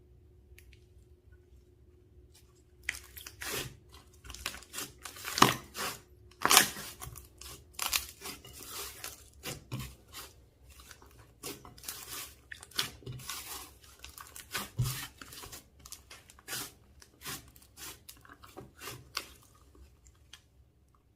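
Slime being squished and stretched by hand, with many irregular sharp crackles and pops. It starts about three seconds in and dies away near the end.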